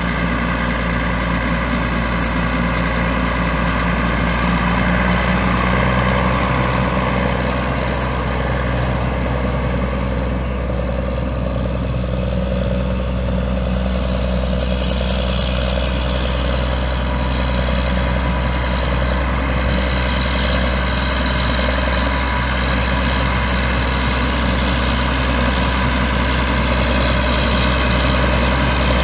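John Deere 9220 tractor's 12.5-litre six-cylinder turbo diesel engine running steadily at an even, unchanging speed.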